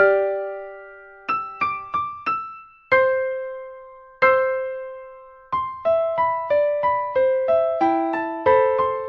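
Solo piano playing a gentle melody in the upper-middle register: single notes and two-note chords that ring out and fade. About five seconds in, the notes quicken to an even run of about three a second.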